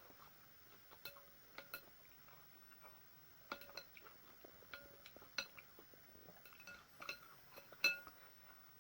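Eating utensils clinking against a bowl of noodle soup while eating, about ten irregular clinks with a brief ring, the loudest near the end.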